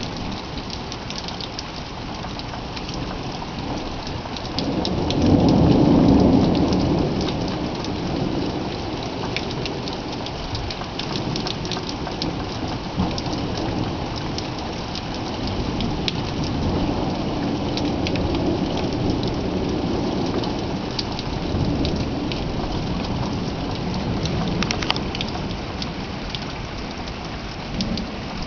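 Steady rain falling, with many sharp drop ticks close by. Thunder rumbles through it, loudest about five seconds in, with fainter rumbles later.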